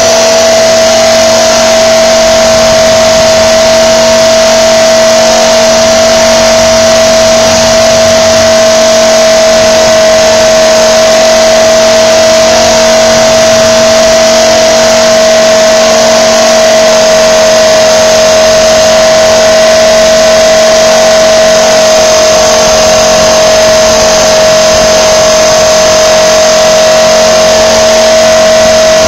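Blade 400 electric RC helicopter running steadily: a loud, constant whine from its motor and rotor that holds one pitch throughout.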